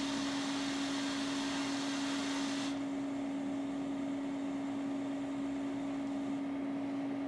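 HP-85's built-in tape drive running, a steady motor whir with a hum under it; the higher hiss drops away about two and a half seconds in.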